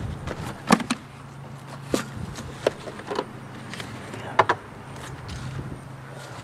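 Several sharp plastic clacks and knocks at irregular intervals as the removed heater and blower unit housings from a Mazda 626 are handled and pulled apart, over a steady low hum.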